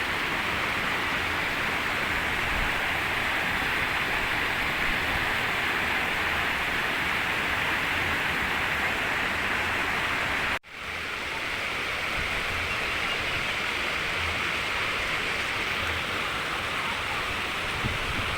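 Steady rush of flowing water, an even hiss. About ten seconds in it cuts out for an instant and comes back.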